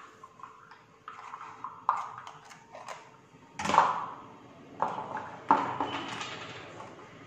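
A measuring spoon clinking and knocking against a steel sieve and bowl while baking soda is spooned in: about six separate knocks, the loudest about three and a half seconds in, with a short ring.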